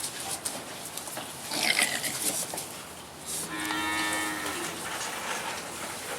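A cow mooing once, a single long call that starts a little after three seconds in and lasts just over a second. A brief higher-pitched cry comes before it, about a second and a half in.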